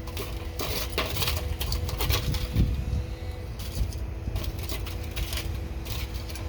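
Lit charcoal briquettes clinking and scraping in quick irregular clicks as they are pushed around and spread out, over a steady low background rumble.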